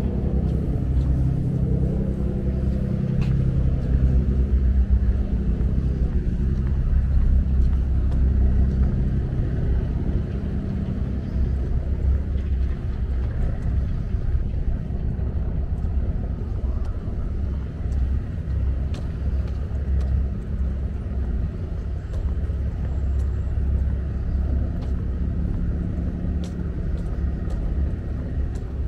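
Engine running steadily with a low rumble, its hum strongest in the first ten seconds and again near the end, mixed with wind buffeting the microphone.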